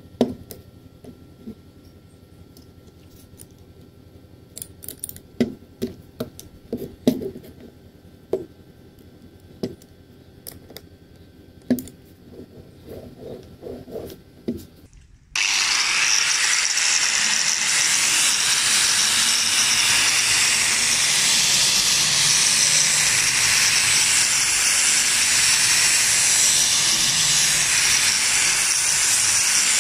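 Scattered metal clicks and knocks as a flap disc is fitted to a DeWalt angle grinder and the tool is handled. About halfway through, the grinder is running at full speed with a loud, steady hiss, its flap disc grinding along a flat steel bar.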